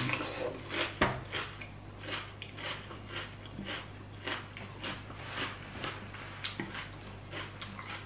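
Close-up chewing of crunchy raw food (green papaya salad and vegetables): a string of short crunches, two or three a second, over a faint steady low hum.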